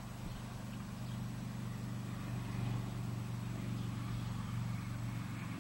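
A motor engine running with a steady low drone, a little louder in the middle and easing off near the end.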